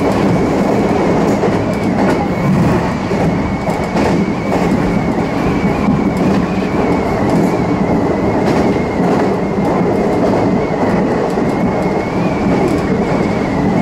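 Meitetsu electric commuter train running at speed, heard from inside the front car: a steady rumble of wheels on rails with scattered rail-joint clicks and a thin, slightly wavering high whine.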